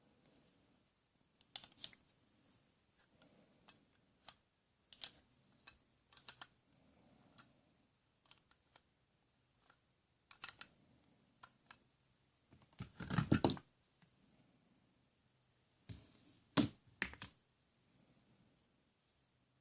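Irregular light clicks and taps from small hard objects being handled, with a louder clattering cluster about thirteen seconds in and a couple of sharp knocks near seventeen seconds.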